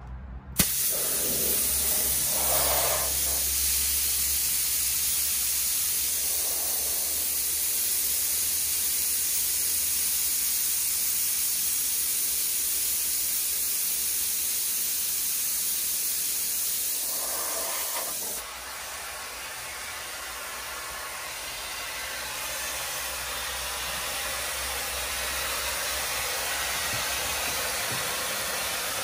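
Compressed air from the Peterbilt 389's air system hissing out steadily as the air is let out. About two-thirds of the way through the hiss drops to a lower level and carries on, slowly getting louder.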